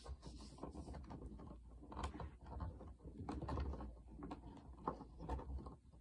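Screwdriver turned by hand on a screw in a Hoover WindTunnel vacuum's housing: faint, irregular small clicks and scraping, with one sharper click about two seconds in.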